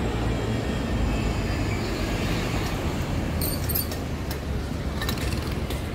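City street traffic: a steady low rumble of vehicles passing on the road, with a few brief high chirps a little past halfway.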